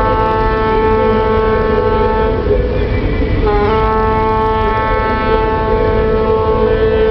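A ship's horn sounding one long, steady blast that breaks briefly and gets going again about three and a half seconds in, over a low rumble.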